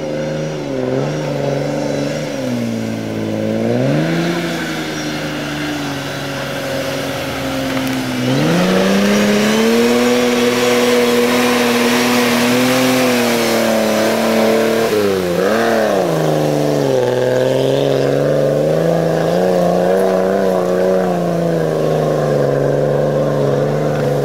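Off-road 4x4 engine labouring through deep mud and water, revving up and down under load. The note climbs sharply about eight seconds in and stays high, dips briefly and recovers after the middle, then settles at a steadier pitch.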